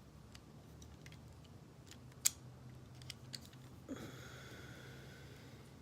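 Small plastic clicks and taps of a Transformers action figure's parts being turned and pegged by hand, one sharper click about two seconds in and a few lighter ones after. A soft hiss comes in near the end.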